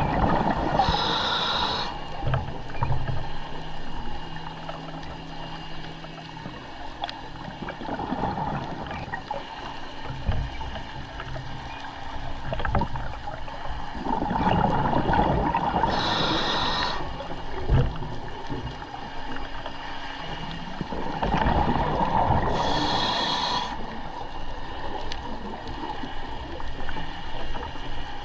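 Scuba diver breathing through a regulator underwater: rushes of exhaled bubbles alternating with short hissing inhalations, several breaths roughly every seven seconds, with a few dull knocks of gear.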